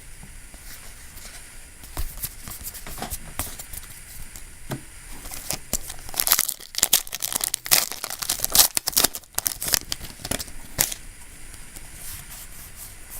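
Foil booster pack of Yu-Gi-Oh! cards being torn open and its wrapper crinkled, with crackling and rustling that is busiest in the middle.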